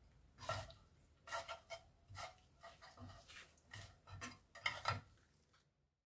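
A wooden spatula and chopsticks tossing sticky, sauce-coated shredded dried squid in a frying pan. It makes a quick, irregular run of short scrapes and squelches against the pan, which stops shortly before the end.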